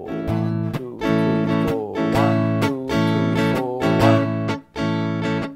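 Electric guitar strummed in a steady 4/4 rhythm, chords about twice a second, played clean into a Boss RC-3 Loop Station as the phrase to be recorded as a loop.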